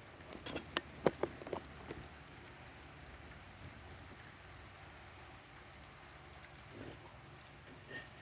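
Steady rain falling, with a quick run of sharp taps in the first two seconds.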